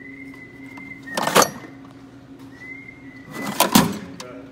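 Metal wrenches and hand tools clattering in a tool-chest drawer as it is rummaged through, in two bursts, the second near the end. Between them come a few held whistled notes.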